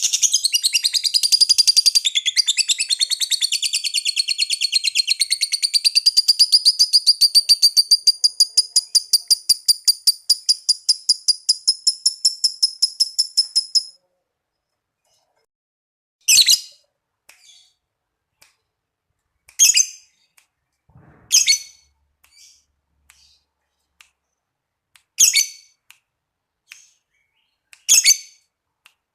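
Lovebird giving its long chattering trill, the 'ngekek panjang': a fast, even run of high-pitched notes that goes on for about fourteen seconds, then stops. After that it gives single sharp shrieks every few seconds, with a few faint chirps between them.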